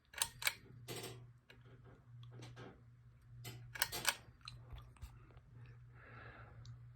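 Ceiling fan motor humming steadily as its speed is changed to medium, with a few sharp clicks and rattles in the first second and again around four seconds in.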